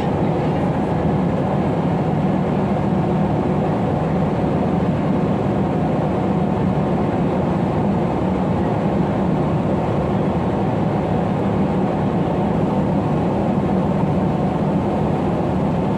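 Steady cabin noise inside a Boeing 777-300 airliner during the climb: the engines and rushing air make an even, unbroken low drone with a hiss above it.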